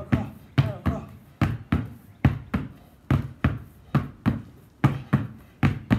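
Two basketballs dribbled hard on concrete, bouncing in quick pairs that repeat a little under once a second.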